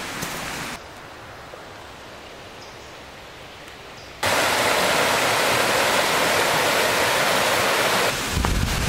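Rushing creek water, a steady hiss that drops quieter about a second in and then comes back much louder about four seconds in, changing abruptly as between separate recordings.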